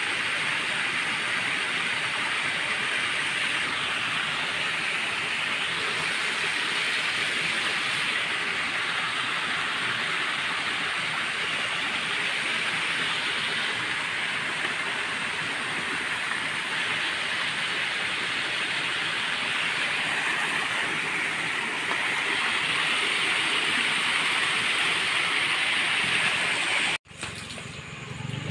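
A steady, even outdoor hiss with no clear rhythm or tone, cutting off abruptly shortly before the end, where a quieter background takes over.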